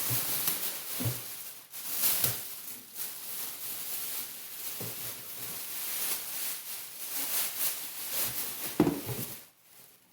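Rustling and crinkling of packaging as e-bike kit parts are handled, with several dull knocks and thumps, the loudest about nine seconds in.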